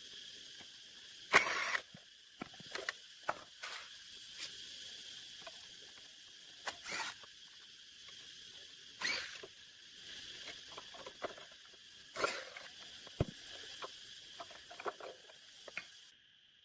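Scattered clicks and knocks of tools and metal parts being handled, the loudest about a second in, over a steady high hiss that cuts off shortly before the end.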